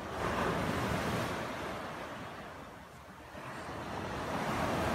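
Small waves breaking and washing up a sandy beach, surging in twice: one swell just after the start that dies away by about three seconds, and another building near the end.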